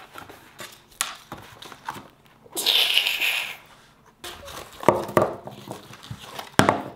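Thin cardboard box being torn open by hand: a ripping rasp lasting about a second near the middle, with shorter tears and clicks of the card around it.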